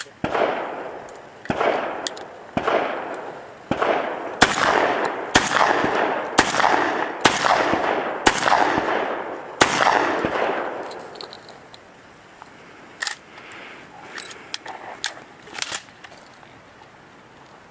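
Shotgun fired in a quick string, about ten shots roughly a second apart, each followed by a long echo. This is followed by a lull of several seconds with a few faint clicks.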